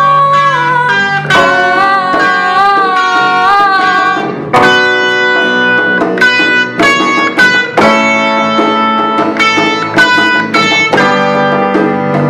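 Live band music from guitars and keyboard. A singer holds wavering notes over the first few seconds, then an instrumental passage of single plucked notes follows.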